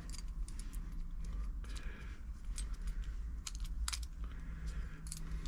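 Irregular small clicks and light metallic rattles from handling a 13 amp plug top and its wire ends while it is being rewired, over a steady low hum.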